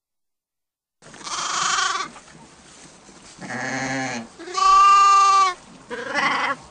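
Sheep bleating: four separate bleats, the first about a second in. The third is the loudest and the clearest, a held baa at a steady pitch.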